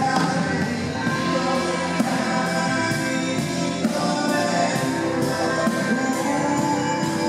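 A live band plays a rock song: singing over acoustic guitar and drum kit, with a steady beat.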